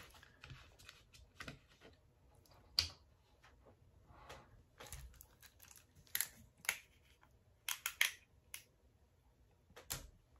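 Plastic water bottle handled and its screw cap twisted open, giving scattered faint crinkles and clicks.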